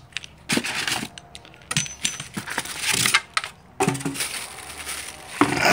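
Cardboard box, styrofoam packing and plastic wrap rustling and scraping as a boxed cast-iron milling vise is unpacked, with a few sharp clicks and knocks in between.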